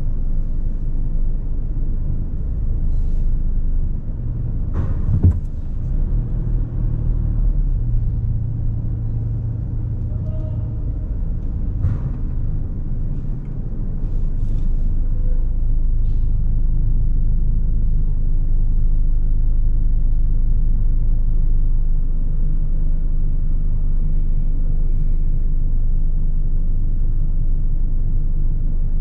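Low, steady rumble of a car idling and moving slowly, heard from inside the car, with a single thump about five seconds in and a click around twelve seconds. The rumble grows slightly louder and steadier once the car stops, about halfway through.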